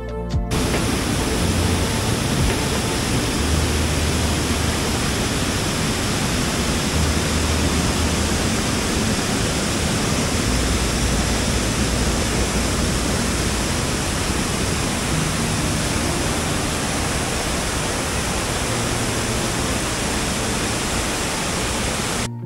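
Waterfall rushing: a loud, steady wash of falling water, starting and stopping abruptly.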